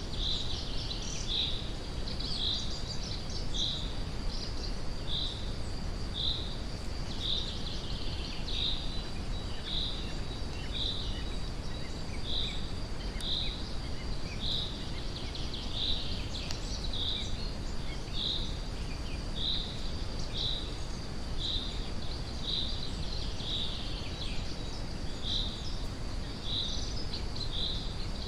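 Forest ambience laid over a steady brown-noise rumble. A short high chirp repeats about once a second, above a faint, steady high-pitched whine.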